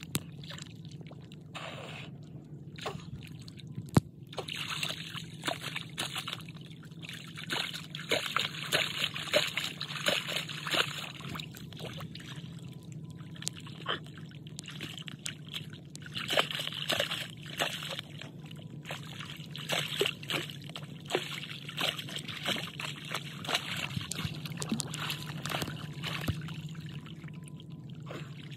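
Shallow muddy seawater sloshing and splashing in uneven spells as an arm and a crowbar work down into a crab burrow under the water, with scattered scrapes and clicks. There is one sharp knock about four seconds in.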